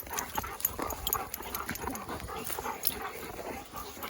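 Dogs moving about at close range: scattered soft clicks and rustles, with one sharp knock right at the start.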